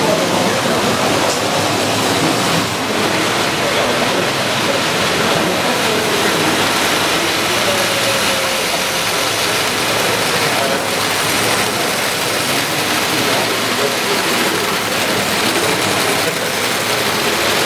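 Model railway train running on the layout: the steady running noise of a small electric model locomotive and its wagons on metal track, with a murmur of voices behind.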